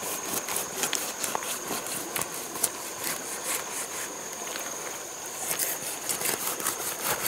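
A large knife cutting into a whole jackfruit, its blade crunching and clicking through the spiky rind and fibrous flesh in many quick, irregular strokes.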